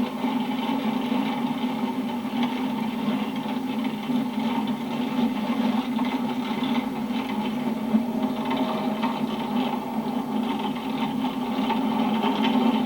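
Steady hum of a vehicle's engine running, with no breaks or changes.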